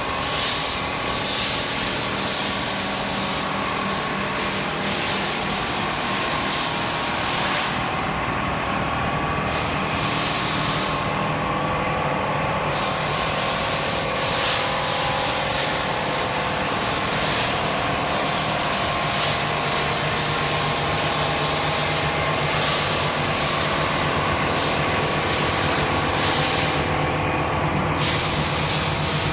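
Automatic pole welding machine running: a steady mechanical hiss over a low hum and a steady whine. The high hiss drops away briefly three times.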